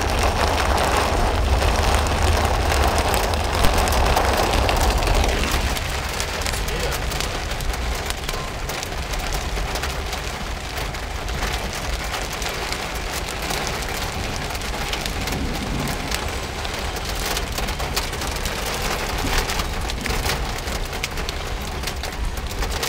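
Heavy rain pattering densely on a moving car's roof and windscreen, heard from inside the cabin, over a steady low rumble of the car on the wet road. A louder rushing in the first few seconds eases about five seconds in.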